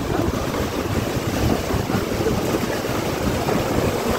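Heavy rain pouring in a strong gale, with wind buffeting the microphone; a steady, even rushing noise.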